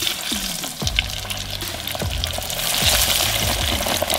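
Battered fish fillets going into hot oil in a small deep fryer, the oil sizzling and bubbling, with the sizzle growing louder about three seconds in. Background music plays under it.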